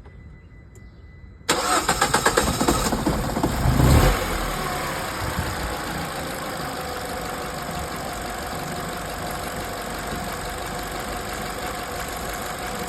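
Car petrol engine being started after a new PCV valve was fitted: the starter cranks for about two and a half seconds before the engine catches with a brief rev, then it settles into a steady idle. The start is hesitant rather than catching on the first crank.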